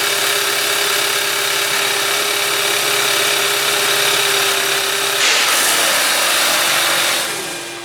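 Hyundai Elantra GT engine running at a steady fast idle, with its pitch dropping slightly about five seconds in before it fades near the end.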